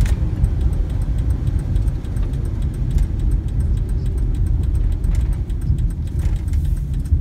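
Box truck's engine and tyres heard from inside the cab while driving: a steady low rumble, with a faint rapid ticking above it.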